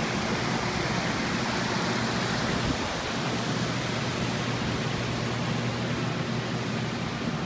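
Steady rushing of fast-flowing water, an even hiss, dipping slightly about three seconds in.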